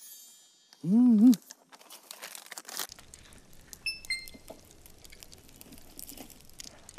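Plastic bag crinkling as shredded cheese is shaken out of it over a cast-iron Dutch oven. About a second in there is a short, loud, wavering pitched sound. Around four seconds two light ringing metallic clinks come as the pot's lid is handled.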